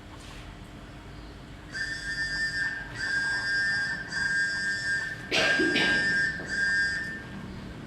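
Mobile phone ringtone: a high, steady electronic tone repeating in five pulses of just under a second each, starting about two seconds in. A short noisy burst, such as a bump, comes with the fourth pulse.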